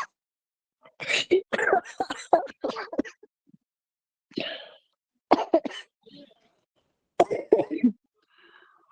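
A person coughing hard in three bouts of short, rapid coughs, the first bout the longest: a smoker's chronic cough.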